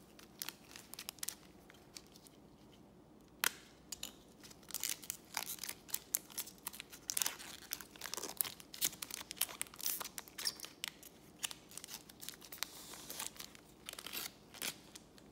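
A foil trading-card pack being torn open and crinkled by hand: one sharp crack about three seconds in, then a long run of sharp crackles as the wrapper is ripped and peeled off the cards.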